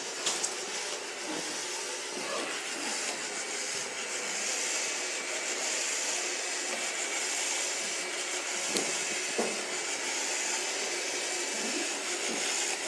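Dirt Devil Fusion robot vacuum cleaner running with a steady high whirring hiss, with a few brief clicks near the start and about nine seconds in.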